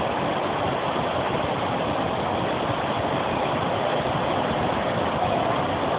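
A steady, even rushing noise with no change in level.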